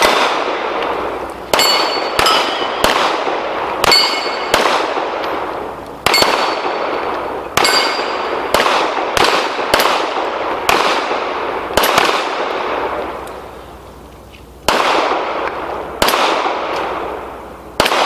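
A string of pistol shots, fired at an irregular pace of up to about two a second, several followed by the ringing clang of struck steel plates. There is a pause of about three seconds before the last few shots.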